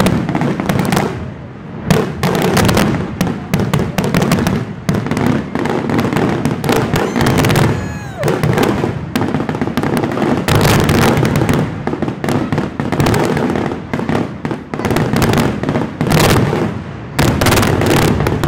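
Aerial fireworks shells launching and bursting in a rapid, near-continuous barrage of overlapping bangs and crackles.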